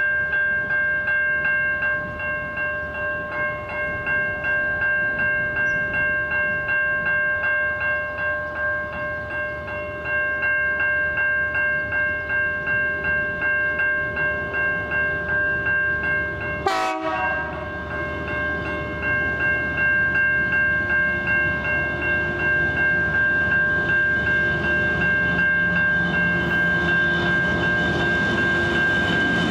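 Level crossing warning bell ringing over and over in an even, pulsing rhythm. About 17 seconds in there is a short sharp click with a falling sweep. Over the last several seconds the low rumble of the approaching SCT freight train's diesel locomotives rises under the bell.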